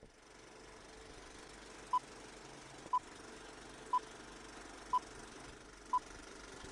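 Countdown leader beeps: a short mid-pitched beep once a second, five times, over a faint steady hiss.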